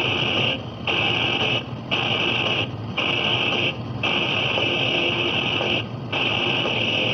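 Radio playing a steady, harsh, high-pitched noise, cut by five brief dropouts about a third of a second long.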